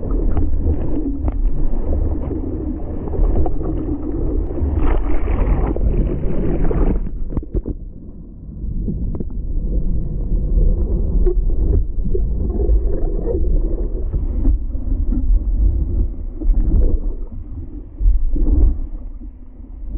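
Seawater rushing and splashing over a surfboard-mounted camera, with low wind buffeting on the microphone, as the board is paddled through whitewater and then ridden on a small wave. The sound is muffled and goes thinner for a moment about seven seconds in.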